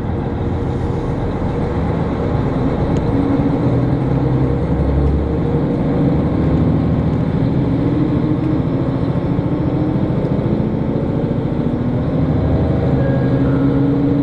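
Diesel railcar's engine running under power as the local train pulls away from a station, heard from inside the passenger cabin: a steady drone whose pitch shifts as it picks up speed.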